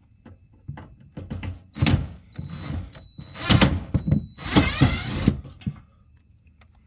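Power drill-driver with a square-drive bit whirring in bursts as it backs out a mounting screw from an RV propane furnace housing, after a few light knocks of handling the tool and box.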